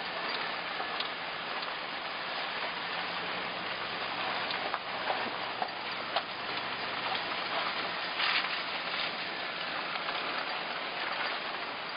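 Steady hiss of tyre and road noise from a vehicle driving, with scattered small ticks and pops, a cluster of them about eight seconds in.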